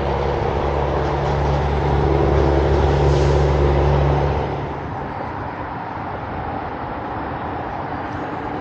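A low, steady engine hum over a broad rushing noise; the hum drops away about four and a half seconds in.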